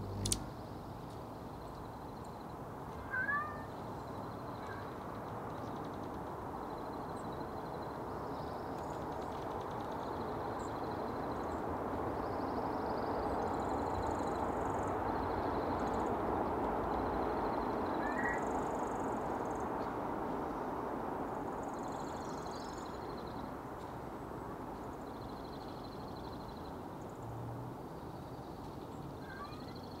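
A domestic cat giving a few short, rising meows, spread across the stretch, over a steady background hiss that swells in the middle. There is a sharp click right at the start.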